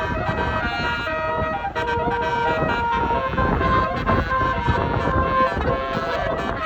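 Tour bus's basuri telolet horn playing a tune, its held notes stepping between a few pitches, over a low rumble.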